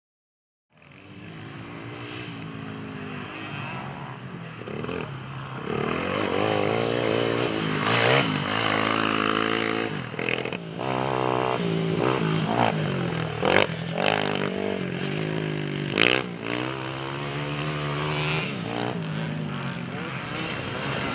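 Racing quad bike engine revving up and down, its pitch rising and falling again and again as the rider accelerates and eases off. It comes in about a second in, with a few short sharp cracks along the way.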